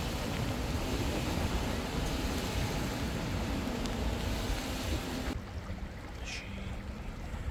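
Steady rushing outdoor noise that cuts off abruptly about five seconds in, giving way to a quieter background with one short, high, chirp-like sound.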